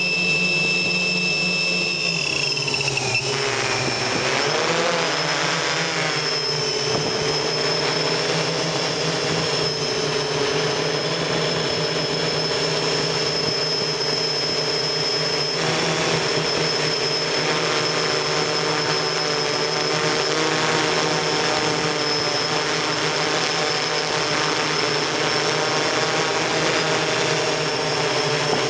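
Electric motors and propellers of a multirotor octocopter heard from on board: a steady whine and buzz of several tones over propeller wash. The pitches dip and waver about three to five seconds in, then hold steady.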